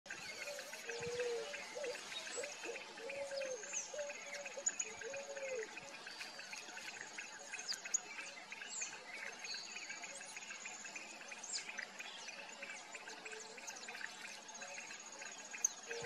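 Low, arched coos of a Picazuro pigeon, several in the first six seconds and another near the end, over a chorus of small birds chirping. A high, even buzz comes and goes in long stretches.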